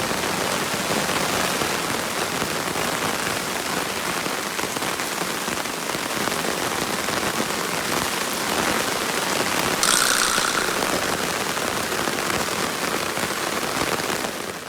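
Heavy rain falling, a steady dense hiss of drops, with a brief louder, hissier patch about ten seconds in.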